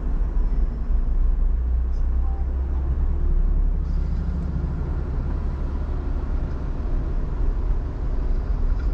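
Car driving through city streets: a steady low rumble of engine and tyre noise.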